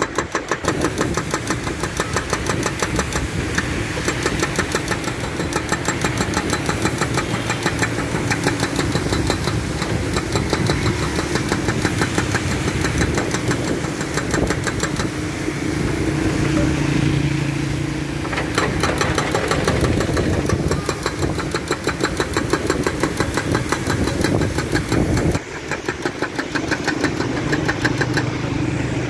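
Hydraulic breaker hammer on a Doosan DX140W wheeled excavator pounding the road surface in a rapid, even series of blows, with the excavator's diesel engine running underneath.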